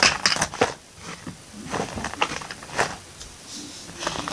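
Small plastic Littlest Pet Shop toy figures handled and set down, with a quick cluster of taps and clicks in the first second and a few single taps after.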